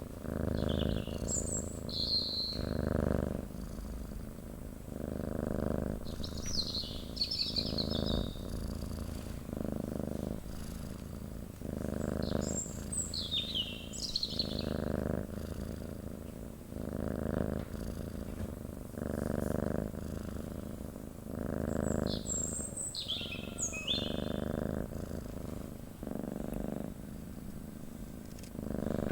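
A domestic cat purring continuously, the purr swelling and easing with each breath about once a second. Short high bird chirps come in several times over it.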